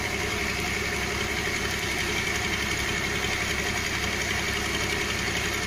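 Rice combine harvester's engine running steadily, an even mechanical drone with a high whine, without change.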